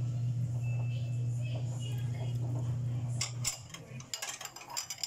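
A steady low hum that stops about three and a half seconds in, followed near the end by a quick run of clinks and taps of cookware being handled at the stove.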